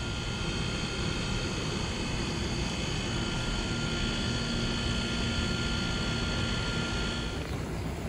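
1991 Trane XE1000 Weathertron heat pump outdoor unit running in cooling mode: the condenser fan and compressor give a steady whoosh and hum, with a few steady high tones. Near the end the high tones stop and the sound drops slightly.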